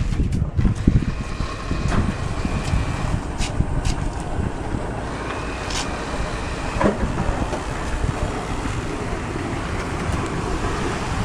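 Steady rumble of a moving vehicle with wind noise on the microphone, and a brief knock about seven seconds in.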